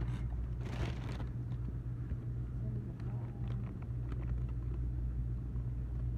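A steady low mechanical hum, like an idling engine or running machinery, with faint rustling and a few light clicks over it.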